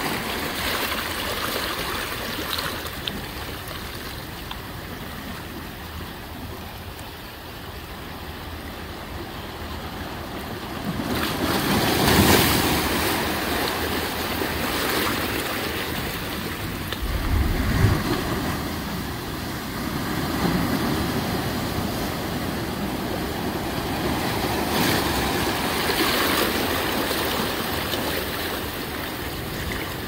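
Ocean surf washing continuously, with a wave breaking louder about twelve seconds in. A brief low thump comes a little past halfway.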